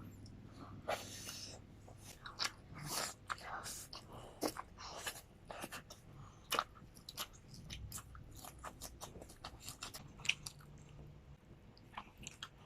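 Close-up eating sounds: chewing and wet mouth smacks with irregular crunchy bites of a meal of grilled pork and rice.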